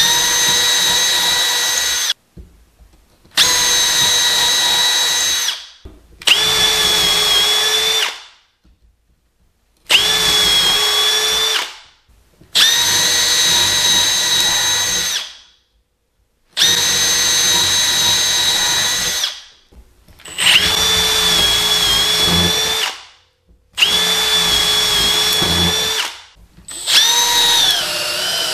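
Milwaukee M12 FUEL cordless hammer drill boring holes through a 2x4 with twist bits and then a spade bit. It runs in about nine bursts of two to three seconds, each a steady high motor whine that winds down as the trigger is released, with short gaps between.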